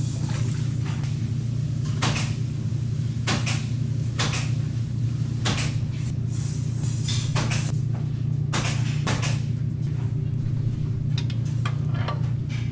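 Dishes and utensils clinking and clattering a dozen or so times at irregular moments over a steady low hum.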